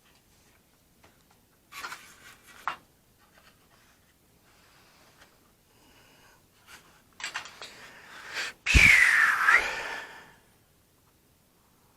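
Workbench handling sounds from building a balsa model-aircraft tail: soft rustling and rubbing. Near the end comes a sudden knock and a squeal about a second long that falls and then rises in pitch.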